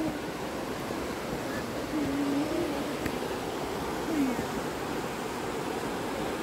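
Creek rapids rushing steadily over rocks. A short wavering tone sounds about two seconds in, and a brief falling one a couple of seconds later.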